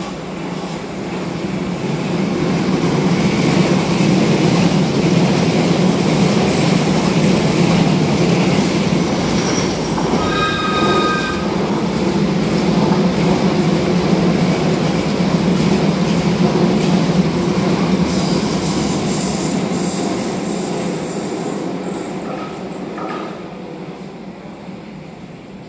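London Underground train running along the track beside the platform, a steady rolling rumble of wheels on rail that builds over the first few seconds, holds, and fades toward the end. A brief high-pitched tone sounds about ten seconds in.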